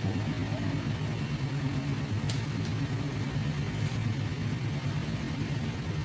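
An engine running steadily at idle, a low even hum. Two short sharp ticks a little over two seconds in.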